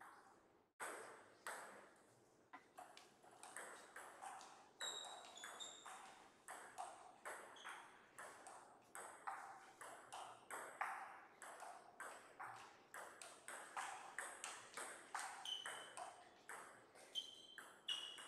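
Faint table tennis ball clicks off bats and tables, irregular and several a second, some ringing briefly with a high tone. They start about a second in.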